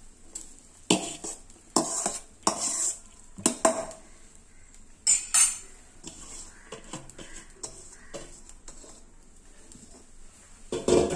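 A steel spoon scraping and clinking against a stainless-steel bowl and pot as cooked rice is tipped out and spread, layering the rice over the chicken for biryani. Several sharp clinks and knocks in the first few seconds, quieter scraping after, and a louder clatter near the end.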